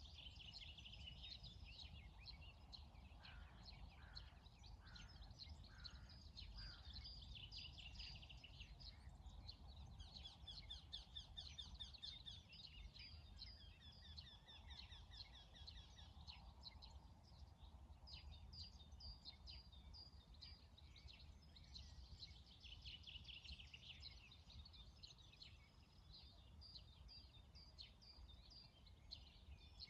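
Faint dawn chorus of several songbirds, overlapping chirps and fast trills, with one lower call repeated five times about a second apart a few seconds in, over a steady low rumble of outdoor ambience.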